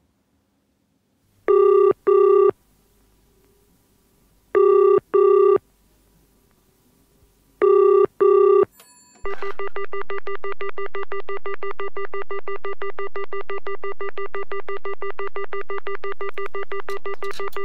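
Simulated call sounds of a British GPO 725 payphone: the UK double-burst ringing tone, three double rings about three seconds apart, then a click and a continuous rapid pipping pay tone, the signal that the call has been answered and coins must be inserted. A few clicks near the end.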